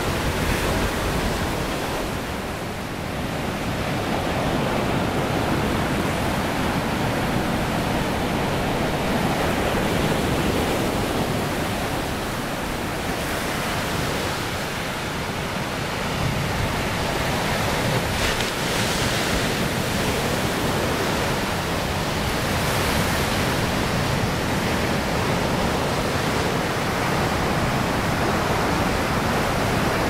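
Pacific Ocean surf breaking offshore and washing up a flat sandy beach: a steady rushing wash that eases slightly a few times and builds again.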